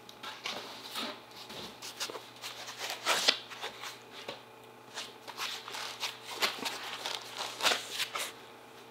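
Cardboard and paper packaging being handled while a camera box is opened: irregular rustles, scrapes and light knocks of box parts sliding and being set down.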